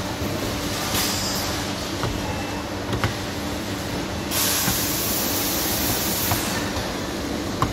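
Steady background rumble and hum of machinery. A loud hiss joins it for about two seconds midway, and there are a few light clicks.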